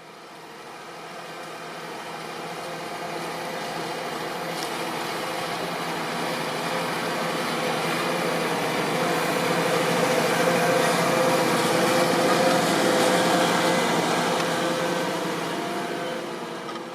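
Fendt 724 Vario tractor's engine working steadily under load while pulling a five-furrow Lemken plough. It grows louder as it approaches, is loudest about twelve or thirteen seconds in, then fades as it moves away.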